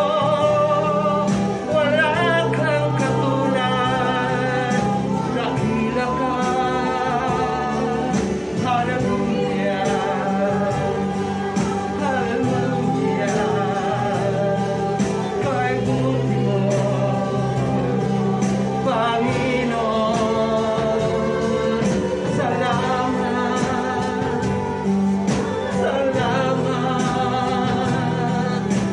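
Christian praise and worship song: singing over instrumental accompaniment.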